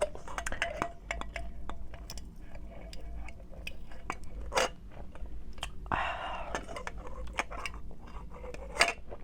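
Scattered light clicks and clinks of cutlery and dishes being handled at the end of a meal, with a short burst of noise about six seconds in.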